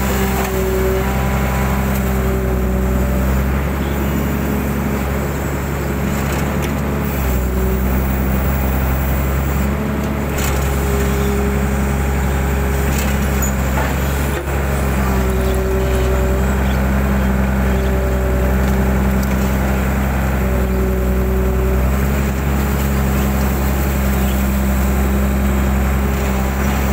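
Mitsubishi 120 excavator's diesel engine running steadily while it digs out a drain, with a higher whine that comes and goes every few seconds.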